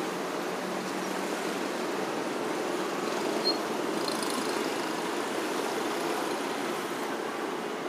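Steady street noise of road traffic passing, with a low engine hum in the first couple of seconds and a brief sharp sound about three and a half seconds in.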